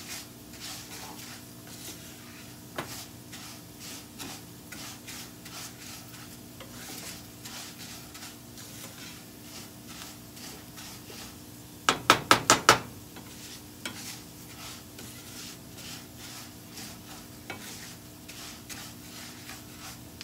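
Spatula stirring raw rice being toasted in a nonstick frying pan, grains scraping and rustling against the pan in repeated strokes with a light sizzle. About twelve seconds in comes a quick run of about six loud, sharp taps.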